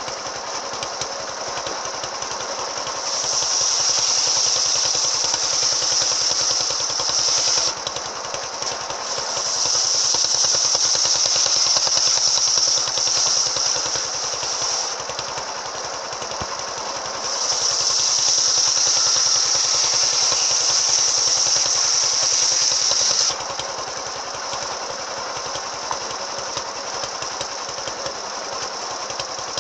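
Circular saw fitted with an AKM saw blade running, cutting through wood three times: each cut adds a louder, high-pitched hiss lasting about four to six seconds, with the saw running at a lower pitch between cuts.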